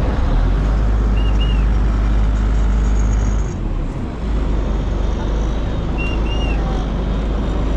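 A Chao Phraya express river boat's engine running steadily under way, a loud low rumble mixed with the rush of water along the hull. Faint, short, high two-note chirps come twice.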